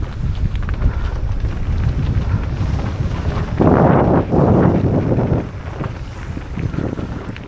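Wind buffeting the camera microphone as a steady low rumble, with a louder rush of noise for about two seconds in the middle.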